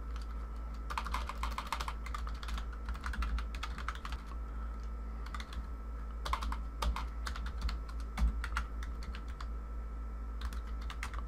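Typing on a computer keyboard in several short runs of keystrokes, over a steady low hum.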